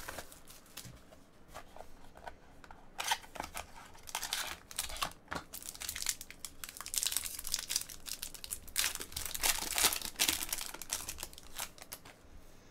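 Cellophane wrap and a foil trading-card pack crinkling and tearing as they are peeled open by hand. The crackling is sparse at first and gets dense from about three seconds in.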